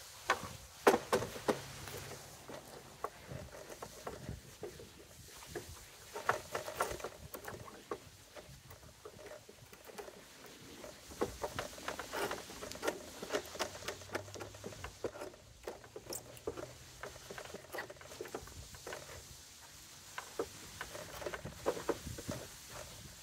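Thin fins of wood left by repeated saw passes being broken off and cleared from a board end by hand: an irregular run of small cracks, snaps and scrapes, coming in bunches.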